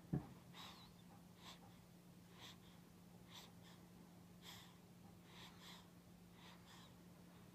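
A sleeper's single short snort right at the start, then faint soft ticks roughly once a second over a low steady hum.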